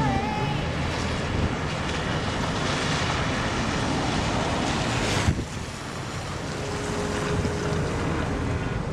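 Steady rushing noise of rain and wind buffeting the microphone, with a single sharp knock about five seconds in, after which the noise briefly dips.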